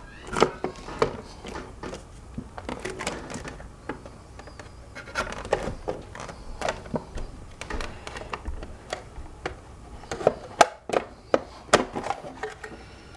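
Hard plastic hoverboard shell being pressed and snapped together by hand: a run of irregular clicks and knocks, sharpest and most frequent near the end.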